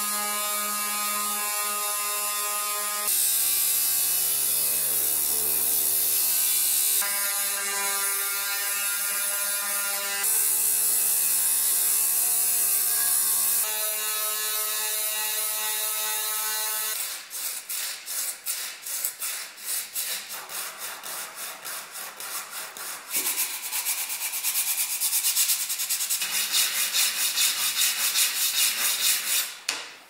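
Electric detail sander with a triangular pad running against wood, a steady motor hum whose pitch shifts between passes. About 17 seconds in it gives way to rhythmic rasping strokes of small wooden blocks rubbed by hand on sheets of sandpaper, faster and louder from about 23 seconds in.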